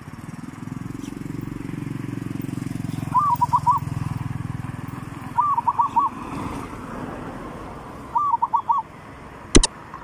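Zebra dove cooing: three short phrases of four or five quick notes, the first note of each rising, a few seconds apart. A low rumble underlies the first part, and a single sharp click comes near the end.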